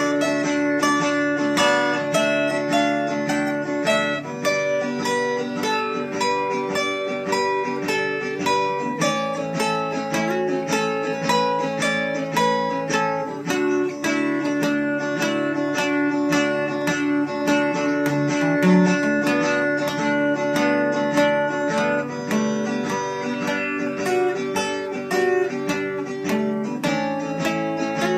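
Acoustic guitar playing, plucked and strummed chords with a steady rhythm.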